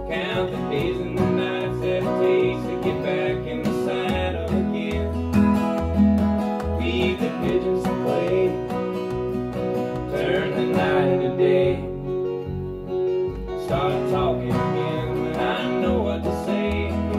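Steel-string acoustic guitar strummed in a steady country rhythm, over a recorded band with deep bass notes that change with the chords, in an instrumental stretch of a country song.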